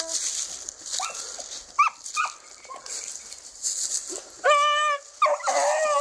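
A dog yelping twice, then giving one long held cry about four and a half seconds in, with more cries near the end.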